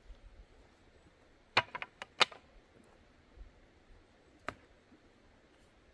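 Split firewood pieces dropped and knocking together on the ground: a quick run of about five sharp wooden knocks about a second and a half in, then one more knock a few seconds later.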